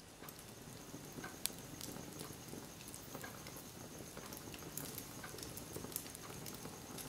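Small wood fire crackling in a brick fireplace: a low steady rustle with scattered sharp pops, one louder pop about one and a half seconds in.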